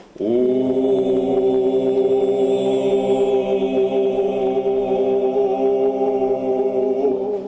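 A man's voice holding one long sung note on a steady pitch for about seven seconds, as a voice exercise in producing a fuller, stronger tone.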